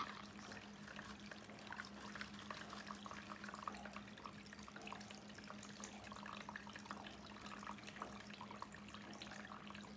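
Water trickling from a battery-powered toy sink faucet into the plastic basin, with faint splashes and drips as a toddler plays in it.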